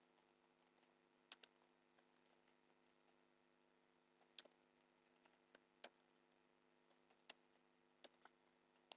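Faint, sparse computer keyboard keystrokes: about ten isolated clicks scattered over a near-silent background with a faint steady hum.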